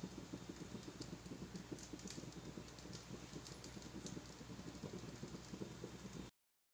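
Faint, irregular crackling and ticking from the lidded hot pan of chicken fried rice just taken off the flame. It cuts off abruptly near the end.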